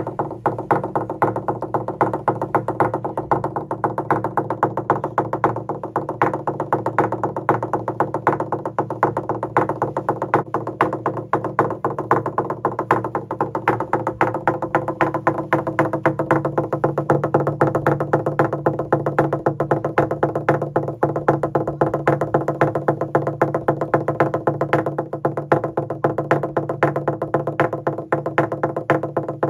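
Fijian lali, a large hollowed-log slit drum, beaten with two wooden sticks in a fast, steady rhythm, the hollow log ringing under each stroke.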